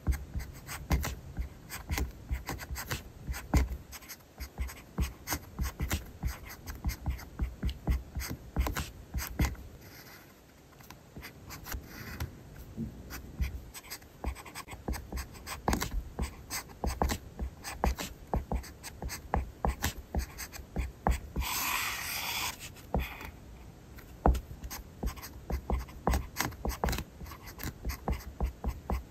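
Pen nib scratching across paper in quick, short handwriting strokes, with light taps as the tip meets the page. A brief, louder swish comes about three quarters of the way through.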